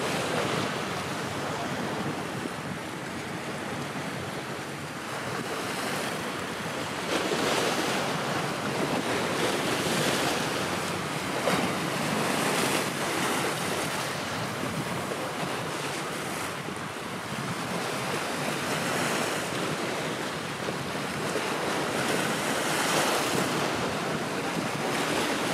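Wind buffeting the microphone over choppy sea water washing, a steady rushing noise that swells and eases a few times.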